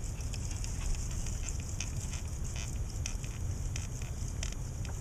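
Steady low wind rumble on the microphone, with a scatter of faint, irregular crackling ticks over it.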